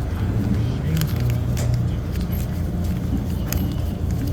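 Steady low machinery rumble with a few sharp clicks and taps about one, one and a half and three and a half seconds in.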